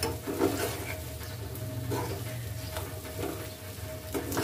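A metal spoon stirs and scrapes mashed boiled potatoes and spice masala around a metal frying pan, with a light sizzle of oil as the potatoes fry. The spoon scrapes hardest about half a second in, around two seconds in and again just before the end. A steady low hum runs underneath.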